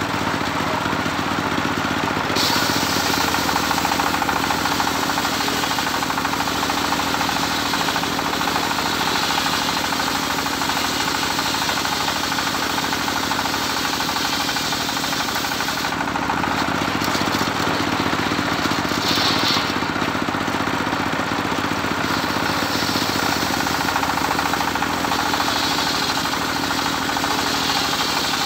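Homemade engine-driven circular saw bench running steadily while its blade rips a long plank of medang timber lengthwise. The high hiss of the cut rises and eases as the plank is fed through.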